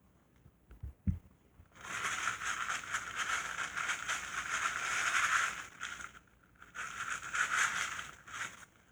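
A towel rubbed against the underside of a transmission casing in two long wiping strokes with a short pause between, after a couple of light knocks about a second in; the casing is being wiped to check for fluid leaks.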